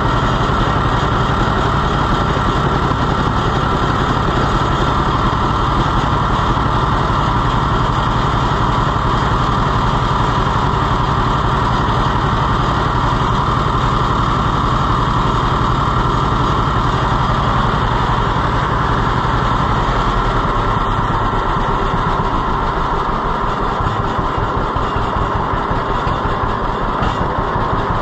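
John Deere two-cylinder tractor engine running steadily. About twenty seconds in it settles to a slower idle, and its separate, even firing beats can be heard.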